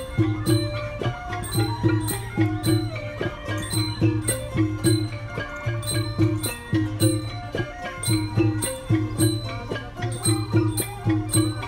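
Background music with a steady percussive beat and plucked melodic notes, in a traditional folk style.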